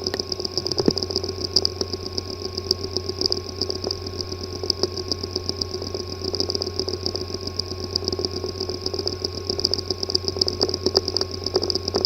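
Hard drive with a physically damaged disk assembly running: a steady hum and high whine with many irregular ticks over it, the sound of a failing drive.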